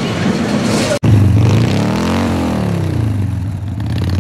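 A motorcycle engine idling, then revved once: the pitch rises for about a second and falls back to idle.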